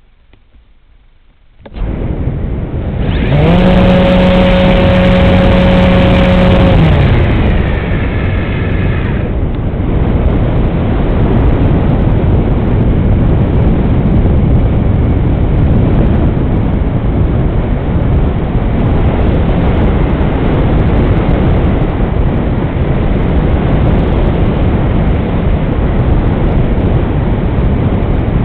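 Radio-controlled model airplane's motor and propeller heard through its own onboard camera, starting up suddenly about two seconds in, then a loud, steady rush of propeller and wind noise through the flight. A steady motor tone stands out for a few seconds just after take-off and then fades into the noise.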